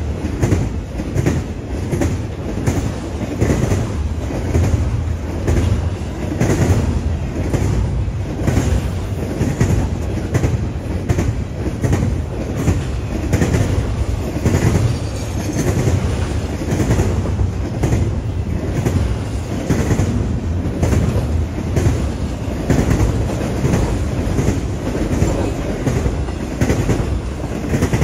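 Double-stack intermodal train of container well cars rolling past: a steady rumble of steel wheels on rail, with clicks and clacks repeating throughout as the wheels cross rail joints.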